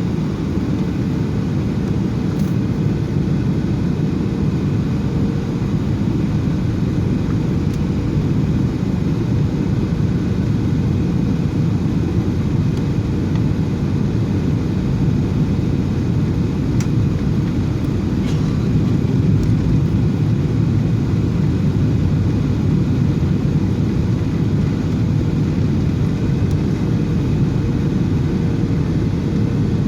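Passenger jet noise: a steady, dense low rumble with a faint constant hum above it, unchanging throughout.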